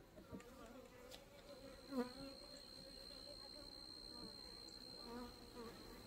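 Honeybees buzzing faintly around an opened hive, a low steady hum with individual bees flying close past, the loudest about two seconds in. A thin, steady high whine joins about a second and a half in.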